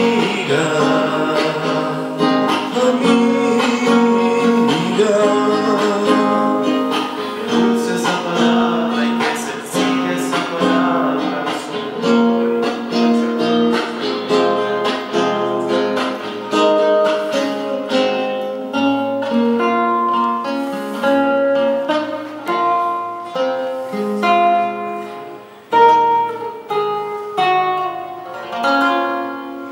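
Live acoustic duet: men's voices singing to a nylon-string classical guitar, then the guitar alone picking out single notes as the song winds down, fading near the end.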